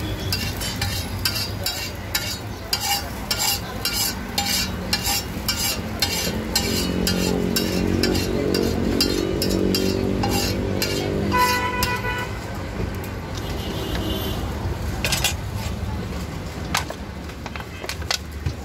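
Metal spatula scraping and tapping on a flat iron tawa as fried egg bhurji is scooped off the griddle, quick strokes about two a second, thinning out after about two-thirds of the way, with light sizzling underneath.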